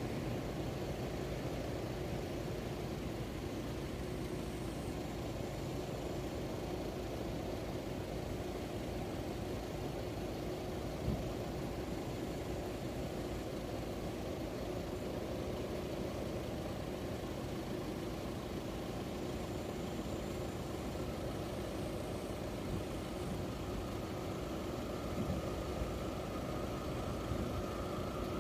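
Car engine idling steadily with a low rumble and hum; near the end a higher tone starts to come in.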